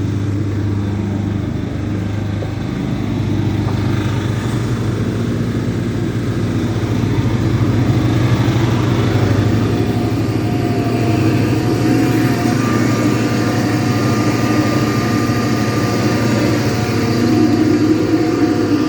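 A boat's engine running steadily with a deep, even drone. Faint steady higher tones join it in the second half.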